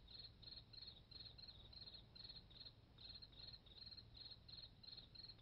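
Crickets chirping faintly and steadily, about three short high chirps a second.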